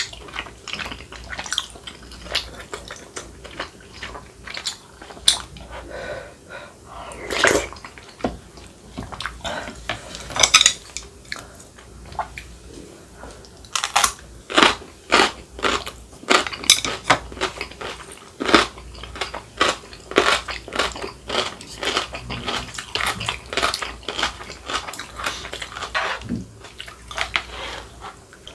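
Close-miked chewing and crunching of food: crisp crackling bites of kimchi and mouthfuls of dumpling rice-cake soup, with spoon clinks against the bowl.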